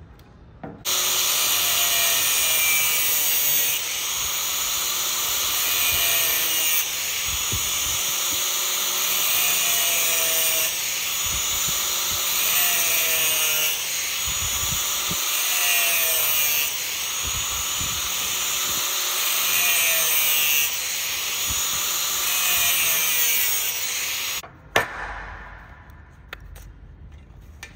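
Angle grinder with a cut-off disc slicing through the metal casing of an electric fuel pump. It starts about a second in, and its pitch sags over and over as the disc bites in repeated passes. It stops abruptly near the end, followed by a single click.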